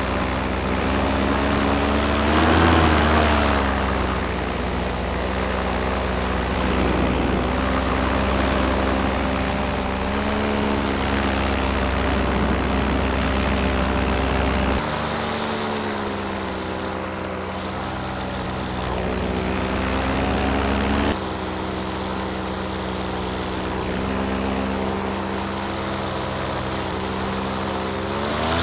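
Paramotor engine and propeller running in flight, a steady droning note whose pitch rises and falls briefly a few times with the throttle. The sound changes abruptly about halfway through and again about three quarters of the way through.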